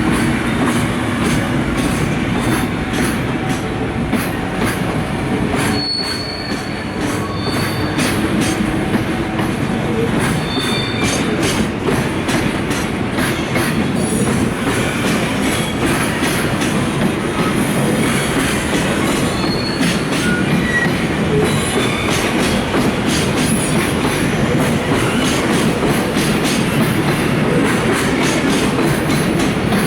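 Freight train of Koki container wagons rolling past at low speed, wheels clattering steadily over the rail joints, with a few brief high wheel squeals.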